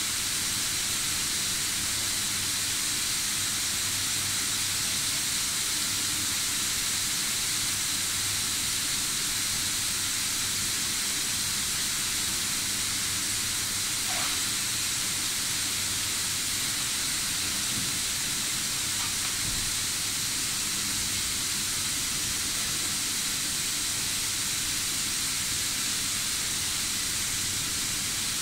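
Steady hiss, even throughout, with a faint low hum underneath.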